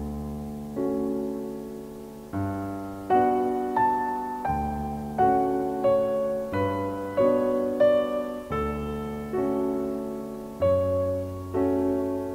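Slow background piano music: notes and chords struck roughly once a second, each left to ring and fade.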